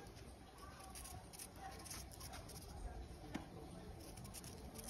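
Knife peeling a yellow yam by hand: faint scraping with a few small sharp clicks.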